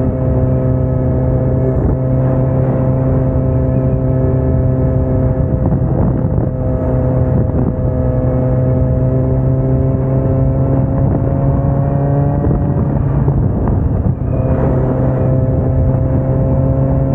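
Kawasaki Ninja motorcycle engine running steadily under way, with wind noise on the microphone. The engine note climbs slightly, drops out for about a second near the end, then picks up again at a steady pitch.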